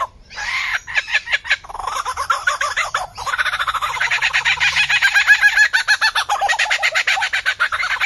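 Lyrebird calling with long runs of short, rapidly repeated notes, about ten a second, breaking off briefly just after the start and again about three seconds in. It is a mimic's call that sounds like fowl.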